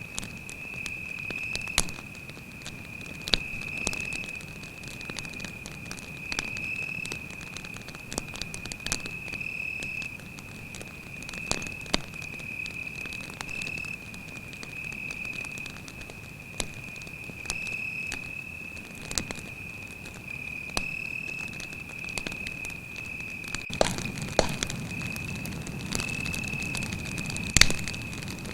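Wood campfire crackling with sharp pops at irregular intervals, one louder pop near the end, over the continuous high trill of a cricket.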